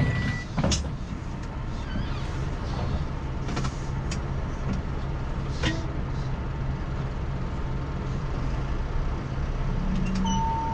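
A stationary diesel engine idling steadily, with a few faint clicks and a short beep near the end.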